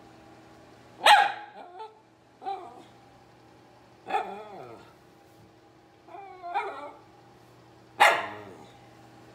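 A miniature poodle barking and whining, begging for food: two sharp, loud barks, about a second in and near the end, with shorter whining yips between them.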